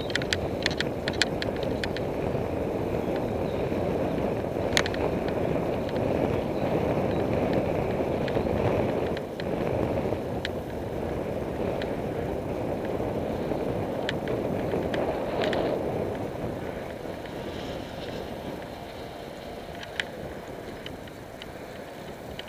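Riding a road bicycle: steady wind and road rumble on an action camera's microphone, easing somewhat in the last few seconds. Sharp clicks from the bike, several in the first second and a few more later.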